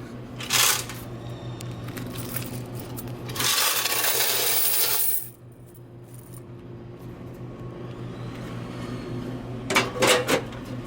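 Quarters clinking and sliding as a vending machine's coin box is emptied: a sharp clatter about half a second in, a longer rush of coins about three and a half seconds in lasting over a second, and a few clinks near the end. A steady low hum runs beneath.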